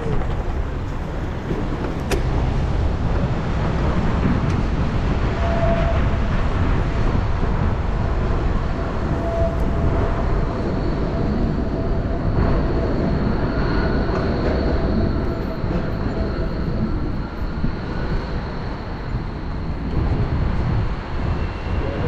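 Wind buffeting a GoPro 10's microphone on a moving bike: a loud, unbroken low rumble that the camera's wind noise suppression does not remove. A passing vehicle's faint whine runs through the middle.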